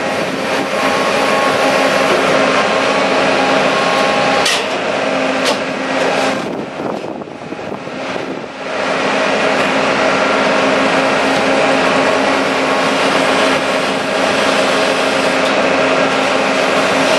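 Leopard hay baler running, a loud steady mechanical drone with a constant hum. It goes quieter and rougher for a couple of seconds midway, then comes back to full level.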